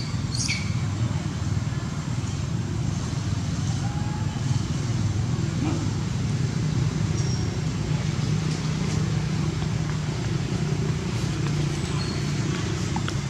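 Steady low background rumble, like distant road traffic, with a few brief, faint high chirps.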